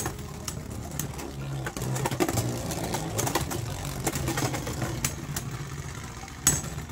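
Two Forneus Beyblade Burst spinning tops whirring on the plastic floor of a Beyblade stadium, a steady low hum with repeated light clacks as they knock into each other. A sharp, loud clack comes near the end.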